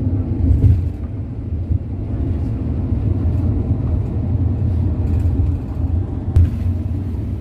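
Steady low rumble of a road vehicle driving along a highway, engine and tyre noise heard from inside the cabin. One brief knock a little past six seconds in.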